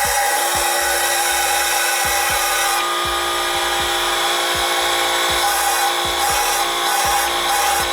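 Steady hiss of compressed air with a steady whine, from a leak-down test on a 5.3 LS V8: air leaking past the valves, which the owner believes were bent by the cam timing being off.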